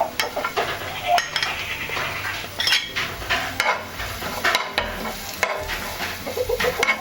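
Grated coconut sizzling in ghee in a pan while a utensil stirs it, scraping and clicking against the pan. The coconut is being lightly toasted to take away its raw taste.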